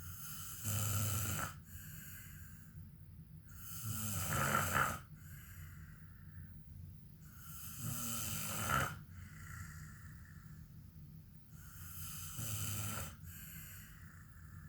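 A man snoring in his sleep: four loud snores, each about a second long, one about every four seconds, with quieter breathing between.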